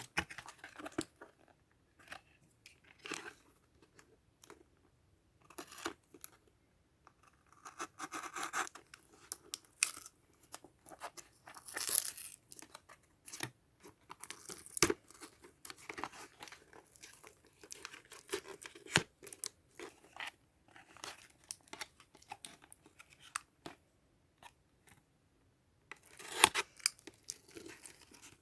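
Toy box and plastic packaging being opened by hand: irregular tearing, rustling and crinkling with small clicks and knocks, in louder stretches about twelve seconds in and again near the end.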